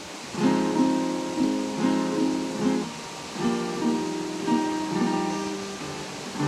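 Acoustic guitar being strummed, starting about half a second in: chords struck every half second or so, changing as it goes, each ringing on between strums.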